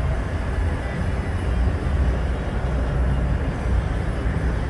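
Steady low rumble of idling diesel semi-truck engines.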